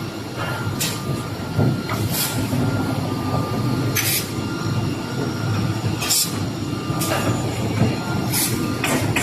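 CNC optimization saw machine working: a steady mechanical rumble with short sharp hisses every one to two seconds.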